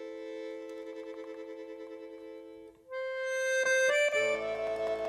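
Background music on accordion: a held chord of steady tones, then a new, louder chord about three seconds in, with a brief cluster of clicks before a fuller chord starts.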